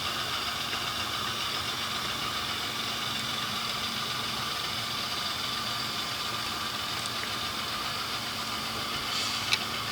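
Model diesel locomotive idling, a steady engine sound, with a single sharp click near the end.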